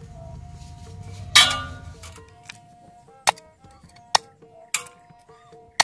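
Kitchen knife chopping the tips off freshwater snail shells on a wooden cutting board: about five sharp cracks, the first, about a second and a half in, the loudest with a short crunch after it. Soft background music plays underneath.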